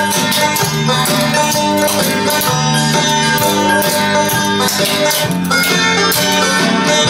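Country-style guitar music with the quick clicking of clogging taps on a wooden floor as a clogging step is danced along to it.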